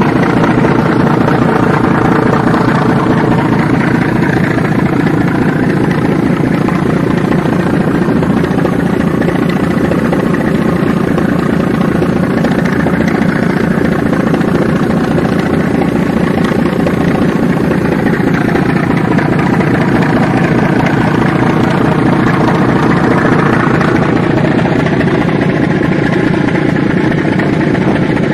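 Diesel engines of a large river passenger launch running steadily under way at about 600 rpm, a loud, even drone from the exhaust stacks on deck.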